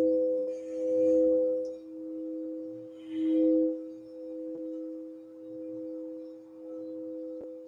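Crystal singing bowls ringing together in two steady tones, one lower and one higher, swelling loud twice and then sounding on more softly in slow, gentle waves.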